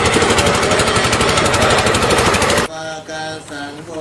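A boat engine running close by, a rapid even pulsing, cuts off abruptly about two and a half seconds in. It gives way to Buddhist chanting, voices holding steady notes.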